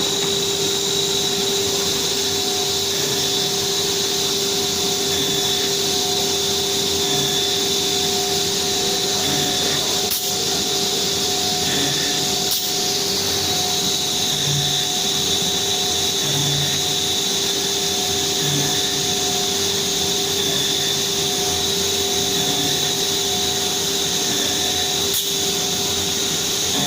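CNC machine running steadily: a constant machine whine with several held tones over a steady rushing noise, with a few faint clicks.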